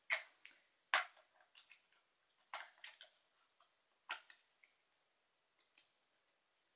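A handful of sharp plastic clicks and taps, irregularly spaced, from handling a digital multimeter while refitting its battery cover.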